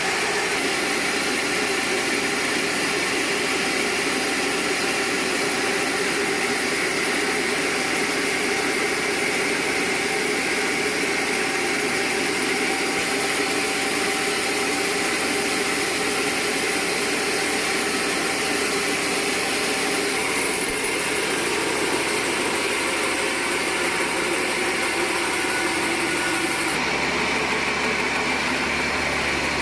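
Sawmill machinery running steadily with a constant mechanical drone and hiss. The tone shifts slightly near the end.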